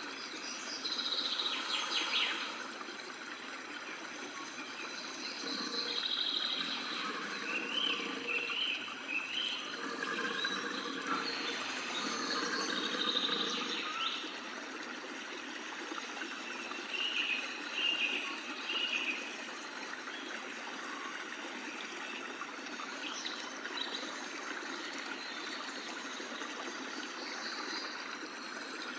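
Water running and trickling steadily, with short bird chirps breaking in several times.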